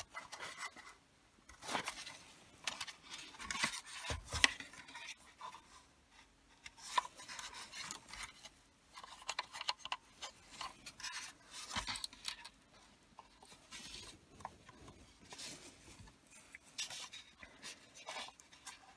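Hard plastic trim parts being handled: the lighter-socket holder and a USB charger socket rubbing, clicking and knocking together in the hands as the socket is fitted and turned straight, with one sharper knock about four and a half seconds in.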